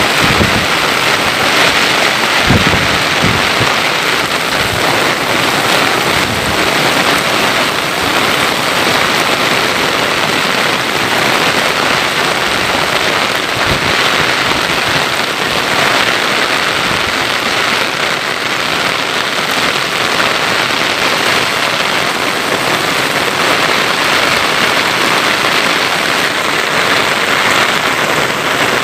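Heavy downpour of rain, a steady dense hiss of rain falling on surfaces, with a few brief low thuds about three seconds in and again near the middle.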